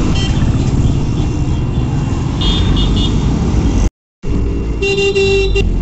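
Riding in an auto-rickshaw: its small engine running with road and traffic noise. The sound drops out for a moment about four seconds in, then a vehicle horn honks for just under a second.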